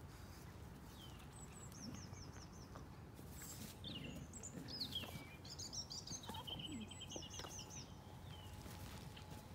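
Small songbirds singing faintly, with several short runs of quick high repeated notes and scattered chirps, over a low steady rumble.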